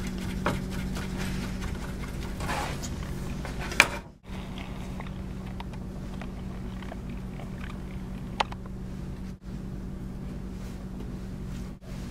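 A steady low hum, with a few isolated sharp taps of a chef's knife and food being handled on a wooden cutting board, the loudest just before the middle and another about two-thirds of the way through.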